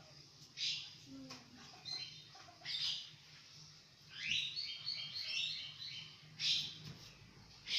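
Quail chirping: short high calls every couple of seconds, with a quick run of stepped notes a little past the middle.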